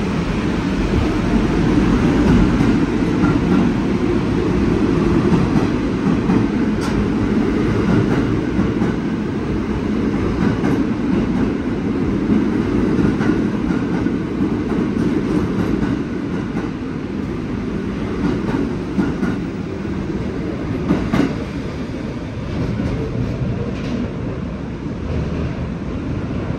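R46 subway train pulling out of the station and running along the platform: a steady rumble of wheels on rail with occasional sharp clicks, getting somewhat quieter in the second half.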